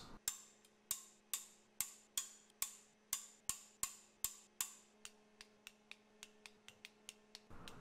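Ratcheting torque wrench clicking on the ARP main-cap stud nuts of an LS V8 block: sharp clicks about two or three a second, turning fainter and quicker about five seconds in, over a faint steady hum.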